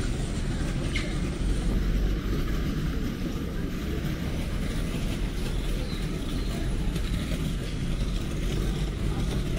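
Steady low rumble of city street noise, like traffic, with no clear voices or single events standing out.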